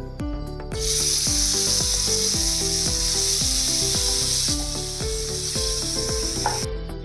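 Marinated chicken pieces sizzling in hot oil in a frying pan. The sizzle starts about a second in as the chicken goes into the oil, eases a little midway and cuts off suddenly near the end. Background music with a steady beat plays throughout.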